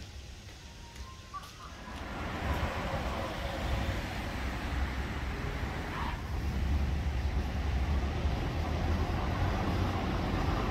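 Steady road-traffic noise, a low rumble under a hiss, coming in about two seconds in and holding.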